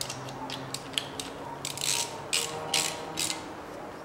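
Ratchet wrench clicking in short strokes, about two to three a second, as a bolt is turned; the strokes stop shortly before the end.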